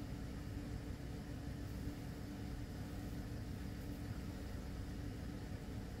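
Seat Ibiza's LPG-converted petrol engine idling steadily, a low even hum heard from inside the cabin.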